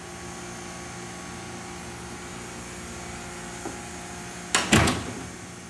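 Steady hum of room ventilation. About four and a half seconds in, a quick cluster of sharp clicks and knocks from a door's knob and latch.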